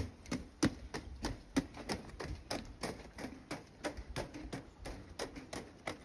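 Quick, irregular footsteps on a wooden boardwalk covered in wire mesh: a child running and an adult walking behind, several sharp taps a second.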